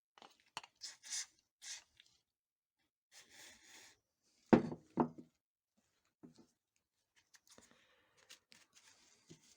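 Workbench handling noises: scattered light clicks and scrapes, a brief hiss, and two sharp knocks about halfway through.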